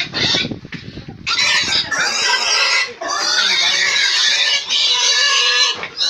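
Pig squealing loudly in long, drawn-out screams from about a second in, broken by a few short gaps: the distress squeal of a pig being grabbed and held.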